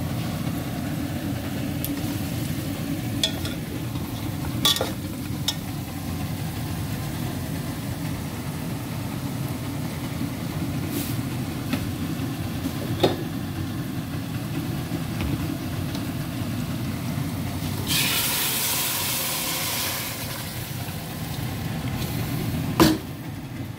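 Gas hob burners running with a steady low roar under pots of simmering food, with a few light clinks of metal pots. A louder hiss lasts about two seconds near the end.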